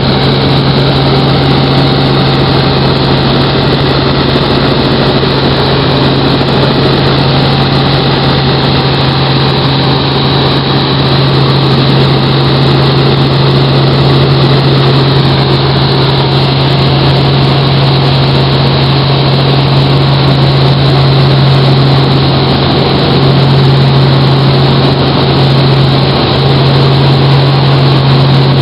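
Helicopter in flight heard from inside the cabin: the engine and rotors make a loud, steady drone with a strong low hum that holds level.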